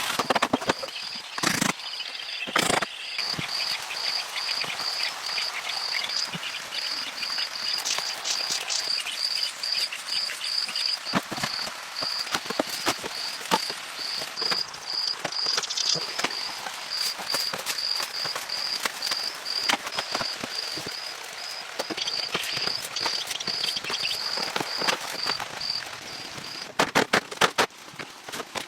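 An insect chirping in a steady run of short, high, evenly spaced pulses that stops a couple of seconds before the end. Frequent light clicks and knocks run alongside it, with a few louder knocks near the start and near the end.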